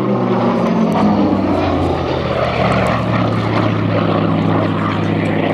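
Hawker Sea Fury's Bristol Centaurus Mk. 18 18-cylinder sleeve-valve radial engine and propeller running at high power in flight. The pitch slides during the first second or so, then holds steady.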